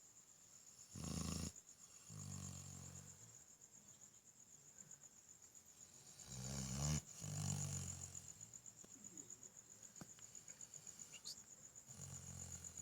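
Dog snoring: five low snores a few seconds apart, the loudest about seven seconds in. Crickets chirp steadily in the background.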